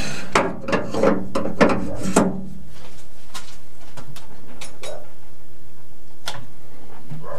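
Metal lathe clacking and clicking as its chuck comes to a stop: a quick cluster of mechanical clacks in the first two seconds or so, then a few separate clicks.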